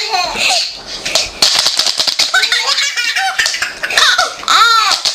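A baby laughing hard, in repeated high-pitched fits of giggles and squeals.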